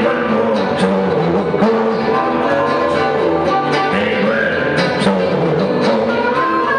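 Live blues band playing: electric guitar and harmonica with a male lead vocal at the microphone.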